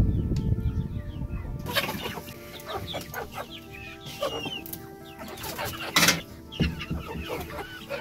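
A low rumble at first, then hens clucking with short, repeated calls. About six seconds in comes one sharp, loud knock.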